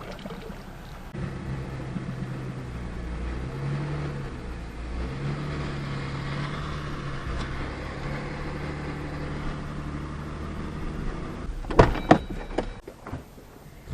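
Johnson 40 hp outboard running slowly with the pitch rising and falling as the throttle is worked, easing the pontoon boat onto its trailer. A few sharp knocks come near the end, and then the motor sound drops away.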